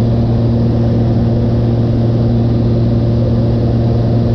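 A small high-wing plane's piston engine and propeller drone steadily in cruise flight, heard from inside the cabin. The drone is a constant low hum with a few higher steady tones above it.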